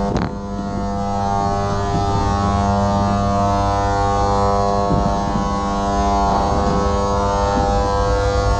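A loud, steady droning hum made of many stacked tones, crossed every couple of seconds by swooping pitch glides, with a sharp falling sweep right at the start. It is a made-up sound effect imitating the buzzing drone heard during sleep paralysis.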